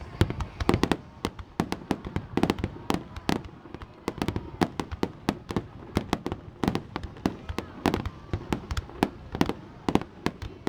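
Aerial fireworks shells bursting in rapid succession, several bangs and cracks a second with crackling between, a continuous barrage.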